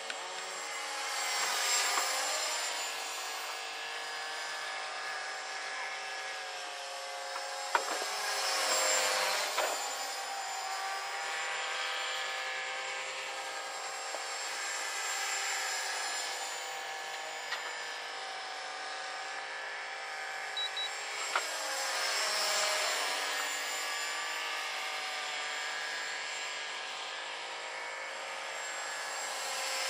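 450-size electric RC helicopter in flight: the whine of its motor and rotor blades, several steady tones that swell louder and bend in pitch about every seven seconds as it passes closer and farther.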